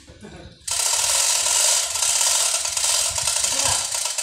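A power machine worked on the scaffolding makes a loud, harsh rasping, grinding noise. It starts abruptly about two-thirds of a second in and cuts off just before the end.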